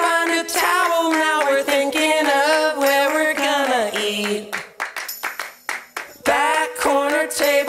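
Background pop music with several voices singing long notes together. About four seconds in the voices drop out for a short break of sharp hits, then the singing comes back.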